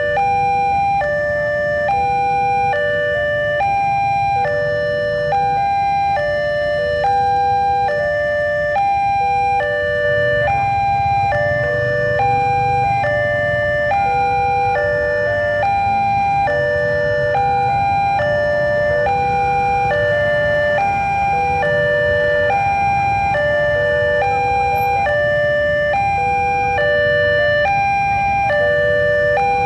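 Level-crossing warning alarm sounding a repeating pattern of stepped electronic tones, over and over, while the barrier is down: the signal that a train is approaching. Idling motorbike and car engines rumble beneath it.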